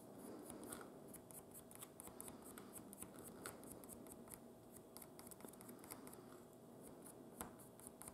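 Faint, rapid scratching of a pencil's graphite being rubbed onto a small wooden crank part, laying down dry lubricant at the pivot ends.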